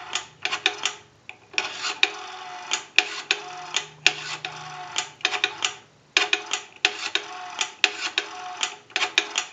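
A Northern Electric three-slot payphone dialing out: groups of sharp clicks over a faint tone on the line, with short pauses between the groups as each digit is dialed.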